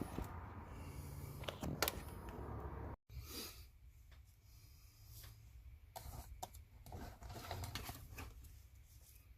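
Faint handling noises: scattered light clicks and soft rustles of hands working with small parts. A low steady hum sits under the first few seconds. The sound cuts out abruptly about three seconds in, then the clicks resume more quietly.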